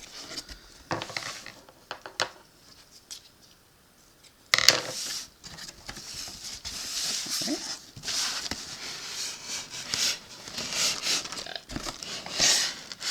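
A cardboard shipping box and its packaging being handled as it is opened: scattered clicks and knocks, a short lull, then a sharp knock about four and a half seconds in and continuous rustling and crinkling of cardboard and packing material.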